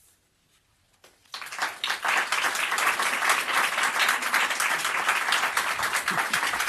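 Near silence for about a second, then an audience breaks into steady applause.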